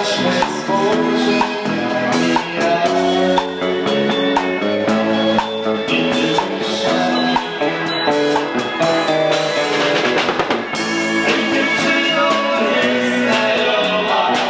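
A band playing music: a drum kit keeps a steady beat under sustained chords and melody notes.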